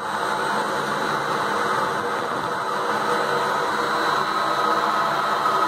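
Wood lathe running steadily with a black walnut platter spinning on it: a constant whir and hiss with a faint hum.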